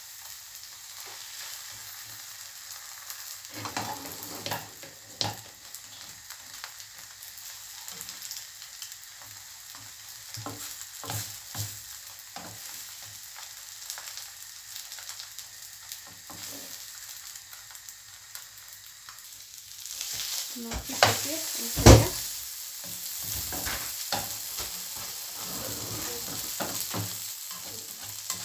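Paratha on an egg coating frying in a non-stick frying pan, sizzling steadily with scattered light clicks. About three quarters of the way through come a few loud knocks and scrapes as it is turned over with a spatula.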